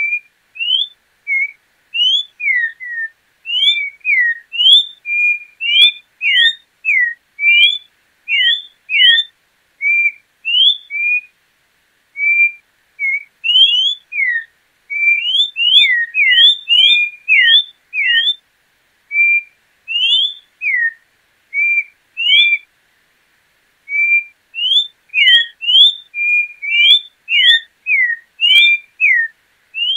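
A João-pinto troupial singing: a long run of clear whistled notes, short rising and falling slurs several a second, in phrases with brief pauses.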